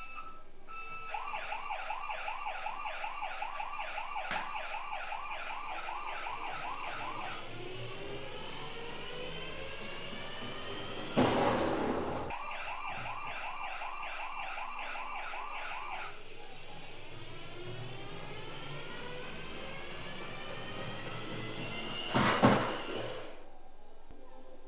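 Toy ambulance's electronic siren: a fast warble of about three cycles a second alternating with a slower rising-and-falling wail, cut off just before the end. Two loud, noisy sounds of about a second each come about halfway through and again near the end.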